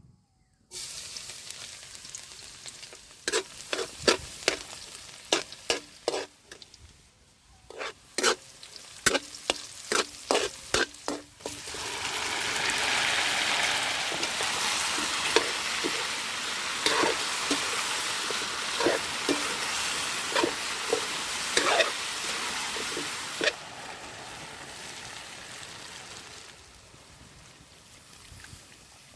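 Chicken feet sizzling in a pan while a utensil knocks and scrapes against it. First comes a run of sharp clinks, then a louder steady sizzle with occasional clinks, which drops to a quieter hiss near the end.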